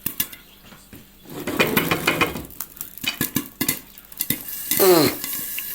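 Clatter of a metal utensil stirring in a cooking pan on the stove while popcorn is made, with many scattered sharp clicks and clinks. A short voice-like sound falls in pitch near the end.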